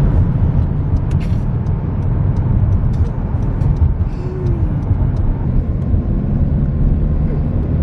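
Road noise inside a moving car's cabin: a steady low rumble from engine and tyres, with a few faint clicks and rattles.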